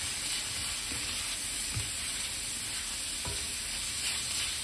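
Browned ground beef sizzling in a cast iron skillet, stirred and pushed around with a utensil that scrapes the pan now and then.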